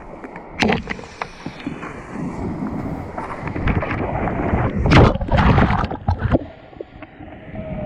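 Kayak in rushing river water: a steady wash of moving water with wind buffeting the microphone, broken by sharp splashes about half a second in and a louder run of splashes around five seconds in.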